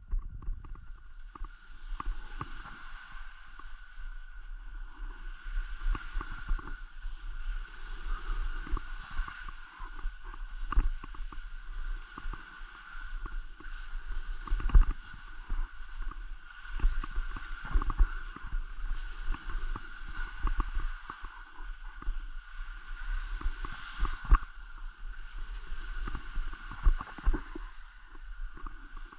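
A person moving over snow on a ski tour: a rhythmic swishing that swells about every second and a half, like strides. Irregular knocks and low rumbles of wind buffeting the microphone run through it.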